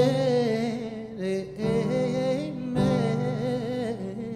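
Live band music from a slow ballad: a held, wavering sung vocal line without clear words over sustained low chords that are struck again twice.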